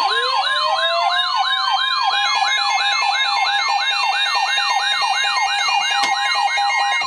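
Emergency alert siren tones sounding ahead of a severe thunderstorm warning message. A siren tone sweeps up and down about three times a second, layered with a steady tone and a second tone that winds up in pitch over the first two seconds. The tones stop at the very end.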